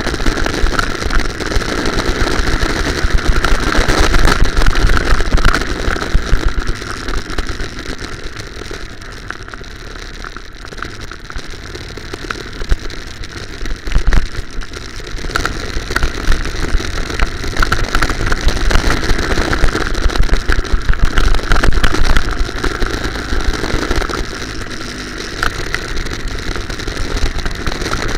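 Go-kart engine running as the kart laps, heard from a camera mounted on the kart, with rattle and buffeting over it. The noise eases for several seconds about a third of the way through, then builds again, with one sharp knock about halfway.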